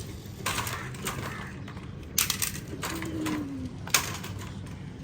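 Toy cars clacking and knocking as they are handled: a few sharp clicks, about half a second, two seconds and four seconds in.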